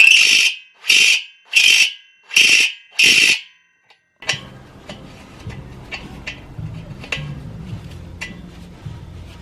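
A conical chamfer cutter in an electric drill squealing against the end of a steel engine stud in five short bursts, recutting the lead of a thread flattened by hammering. After a short pause come a low hum and scattered small metallic clicks.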